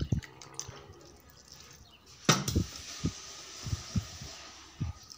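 Hand mixing damp semolina with water in a bowl: a few soft, dull thumps as the grain is pressed and turned, with one sharper knock a little over two seconds in followed by a faint steady hiss.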